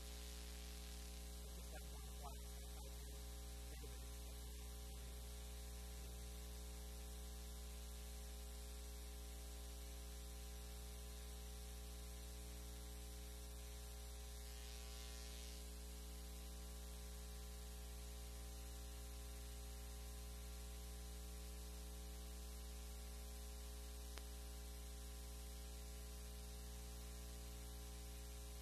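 Steady electrical mains hum with a buzz of many overtones, unchanging throughout.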